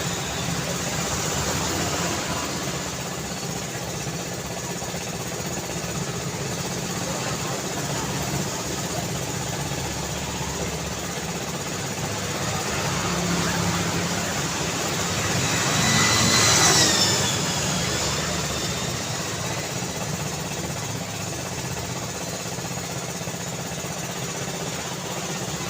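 Busy city street traffic: a steady wash of engines and tyre noise. About two-thirds of the way through, one vehicle passes close, swelling to the loudest point with a high whine that drops in pitch as it goes by.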